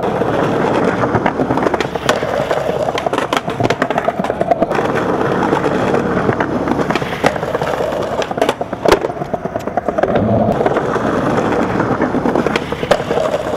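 Skateboard wheels rolling on a concrete sidewalk, a steady rumbling hiss broken by sharp clacks now and then, the loudest about nine seconds in.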